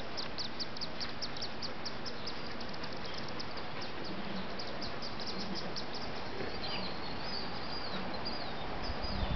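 Birds calling outdoors: a fast run of short high chirps, about four or five a second, that fades out about six seconds in, followed by a few whistled calls. Steady background hiss.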